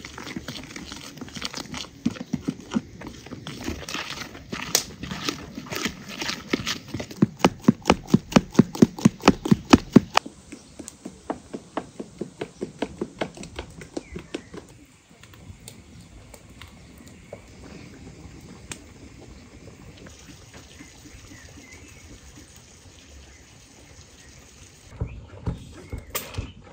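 A spoon beating cake batter by hand in a plastic bowl, its rhythmic strokes about four a second, growing louder before stopping about ten seconds in. A quiet outdoor background follows.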